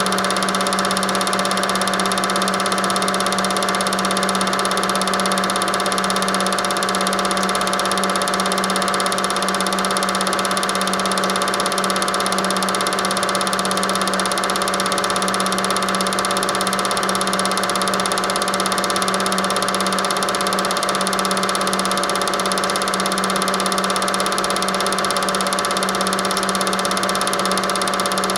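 Super 8 film projector running: a steady mechanical whir with a constant hum.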